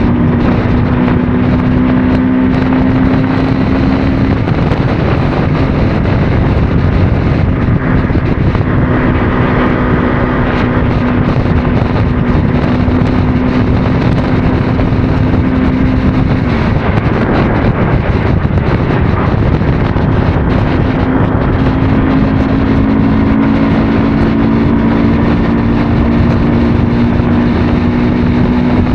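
Motorcycle engine running at a steady cruising speed under heavy wind rush on the microphone. The steady engine hum drops out for a few seconds past the middle, then comes back.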